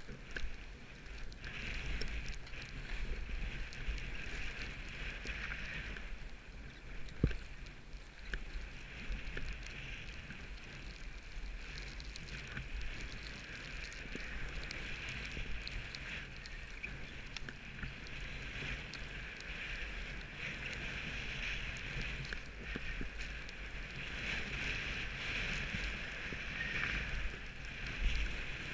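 Skis hissing steadily over snow on a downhill run, with wind rumbling on the camera microphone. One sharp knock about seven seconds in.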